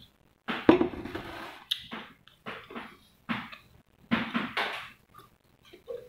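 Close-up eating sounds from a vegetable and rice meal eaten by hand: short, irregular chewing and mouth noises, roughly once a second, with quiet gaps between.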